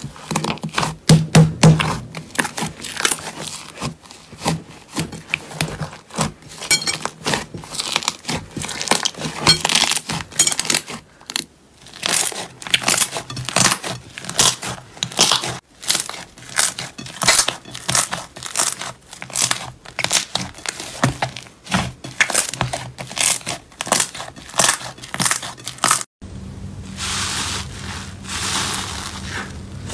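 Hands kneading and squeezing a large mass of thick purple slime in a glass bowl: a rapid, irregular run of crackles, pops and squelches as the slime is folded and pressed. Near the end it changes to a hand pressing foamy green slime, a steadier fizzing crackle.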